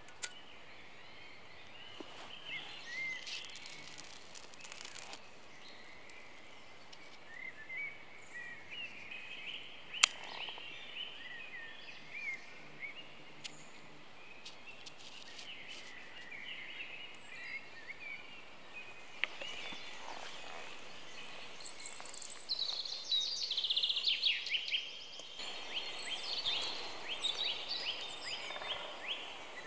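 Wild songbirds calling and singing over a quiet woodland background: scattered short chirps throughout, with a busier run of rapid high song from about 22 seconds in. A single sharp click about ten seconds in.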